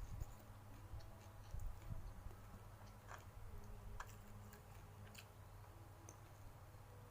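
Quiet eating sounds: scattered soft clicks and small mouth noises of someone chewing a meal of fried fish, rice and raw papaya leaves, over a low steady hum.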